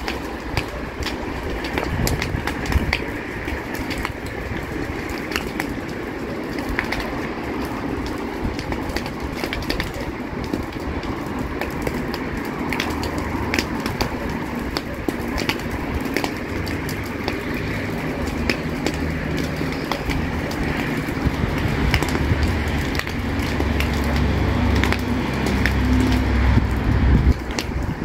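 Dry brush burning: a fire crackling, with many sharp snaps over a steady rushing noise. In the second half a low rumble builds and stops suddenly near the end.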